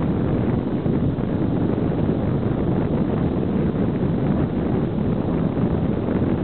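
Wind rushing and buffeting over the camera's microphone, a steady, even noise with no other distinct sound standing out.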